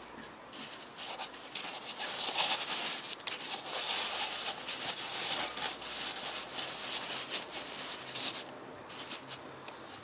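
Rustling and light scraping of hands handling a paper oil filter cartridge and a cloth shop towel in the engine bay: a dense run of small crackles that starts about half a second in and fades shortly before the end.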